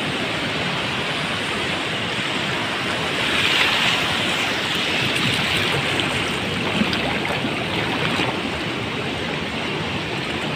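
Shallow seawater washing and splashing steadily around a person wading knee-deep while shaking a fishing net in the water, a little louder about four seconds in.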